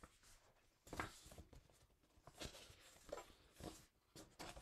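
Near silence: faint room tone with a few soft rustles and clicks.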